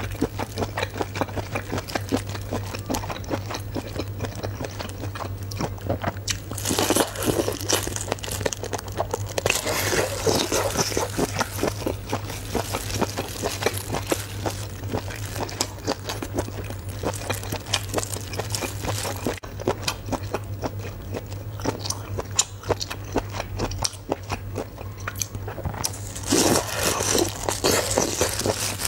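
A person biting and chewing cooked octopus tentacles in thick spicy sauce: continuous crunching and chewing mouth sounds, louder for a few seconds about seven and ten seconds in and again near the end. A steady low hum sits underneath.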